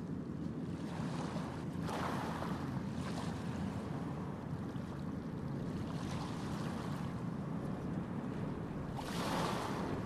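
Steady rushing of a waterfall pouring into a pool, with louder surges about two seconds in and again near the end.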